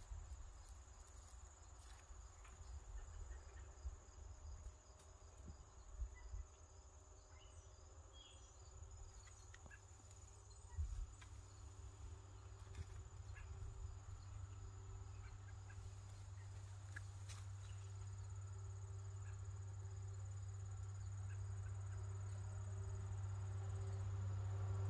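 Faint outdoor background: a steady high thin whine with a few light clicks, and a low rumble that grows louder toward the end.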